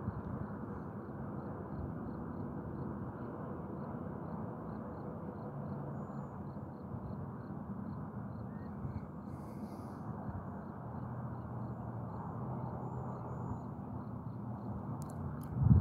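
Freight train of covered hopper cars rolling slowly past on curved track: a steady low rumble of steel wheels on rail, with faint low hums that drift in pitch. A sharp knock right at the end.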